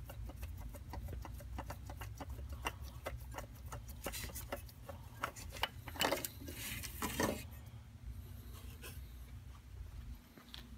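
A loosened spin-on oil filter being turned off its mount by a gloved hand: a run of small irregular clicks and rubs of the metal canister, with a few louder scrapes about four to seven seconds in, over a low steady hum.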